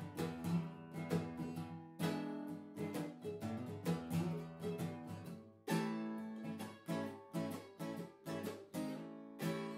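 Background music played on acoustic guitar, a run of plucked and strummed notes.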